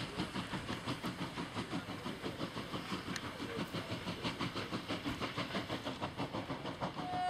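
Steam locomotive working under steam, its exhaust chuffing in a quick, even rhythm.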